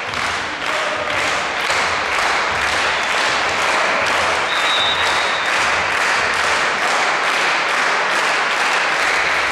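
Crowd applause in a sports hall, clapping with a regular beat about three claps a second.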